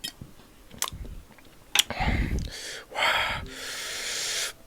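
A person's breathing while eating spicy chili: a few mouth clicks, then sharp breaths drawn in, ending in a long hissing breath from about three seconds in, the kind of air-sucking that comes from the chili's heat.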